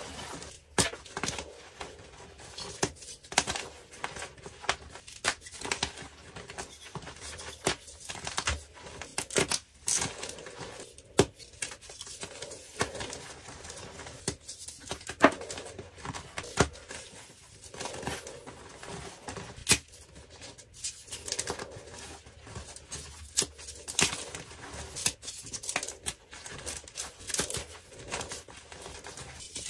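Blocks of dyed gym chalk crushed and crumbled between bare hands: irregular dry crunches and sharp snaps as the chalk breaks into chunks and powder.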